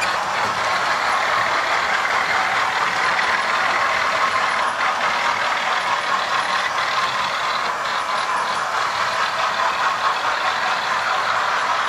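Model railway trains running on the layout: a steady mechanical whirr and clatter of the locomotives' small electric motors and wheels on the track.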